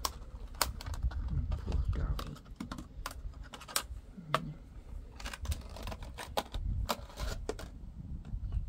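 Irregular sharp clicks and taps of a small plastic plant pot being knocked about on paving by a Goffin's cockatoo at play, over a low rumble.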